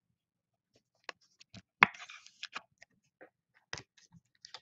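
Football trading cards being handled and flipped through by hand: scattered light clicks and taps of card on card, with a short rustle of sliding cards about two seconds in.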